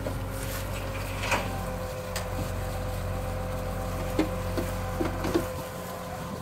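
A vehicle engine idling steadily with a low, even hum. A few light clicks and short knocks sound over it, most of them in the second half.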